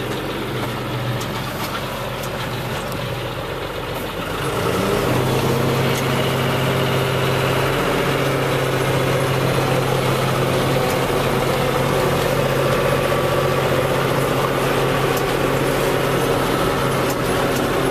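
Tractor engine running steadily, then speeding up about four to five seconds in and holding at higher revs while it pulls a roller crimper over a cover crop.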